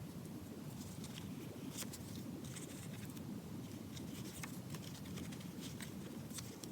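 Faint, scattered light clicks and rustles of hands handling a small leather notebook and its paper parts, over a steady low background hiss.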